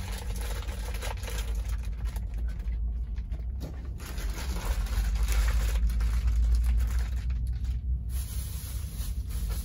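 A plastic produce bag rustling and crinkling as vegetables are handled out of it. Under it runs a low steady rumble that swells a little in the middle.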